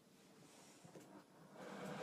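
Near silence: quiet room tone, with a soft breathy hiss swelling near the end.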